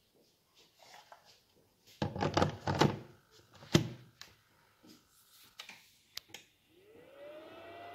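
Husqvarna BLi200X battery pack scraping down into a Husqvarna QC330 charger and seating with a sharp plastic clack, then a few light clicks. Near the end the charger's cooling fan spins up, its whine rising and settling to a steady pitch with a low hum as charging begins.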